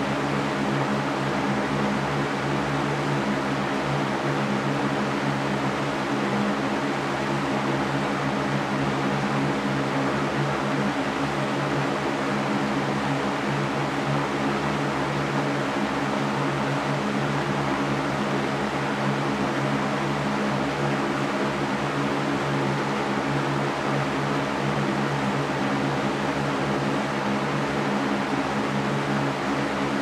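Electric fan running steadily: an even rush of moving air over a low, constant motor hum.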